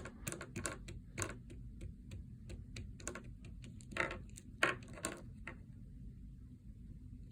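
Small toys being handled: irregular light clicks and taps, closely spaced at first, with a few louder taps about four to five seconds in.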